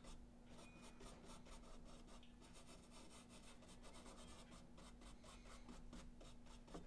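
Faint, quick repeated strokes of a paintbrush rubbing over soft pastel and charcoal on thick, toothy watercolor paper, blending the colour into the drawing.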